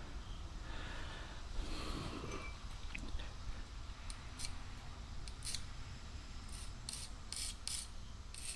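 Broadhead blade being worked by hand: soft rustling handling at first, then from about four seconds in a series of short, crisp, high hissing strokes of the steel edge, about two a second.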